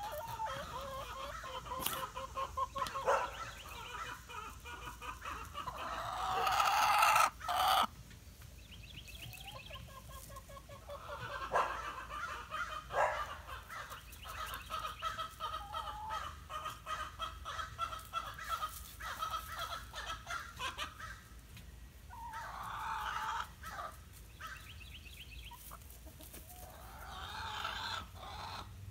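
Backyard chickens clucking and calling over and over, with one louder, drawn-out call about six to seven seconds in.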